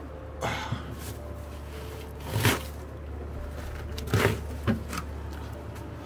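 A hand pushing and punching at snow packed into an open window frame: about five short thumps and scrapes, the loudest about two and a half seconds in, over a steady low hum.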